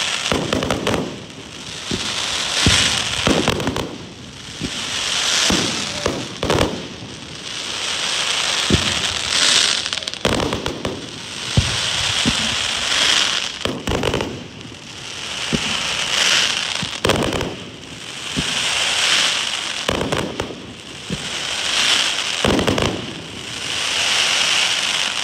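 Aerial fireworks going off: sharp bangs followed by swells of dense crackling from crackle-effect shells, a new wave every two to three seconds.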